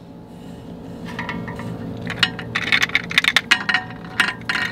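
Quick clicks and clinks of a small plastic toy crane bucket knocking and scraping against an aluminium cooking pot, sparse at first and thicker in the second half, over a steady low hum.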